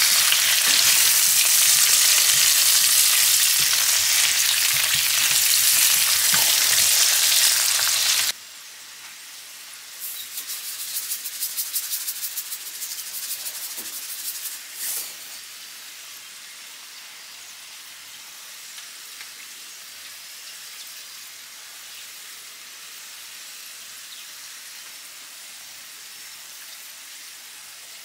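Sliced potatoes sizzling loudly in hot oil in a nonstick frying pan while a silicone spatula turns them. About eight seconds in, the loud sizzle cuts off to a much quieter one. A couple of seconds later comes a run of fast ticks as a seasoning shaker is shaken over the pan, then a steady gentle sizzle.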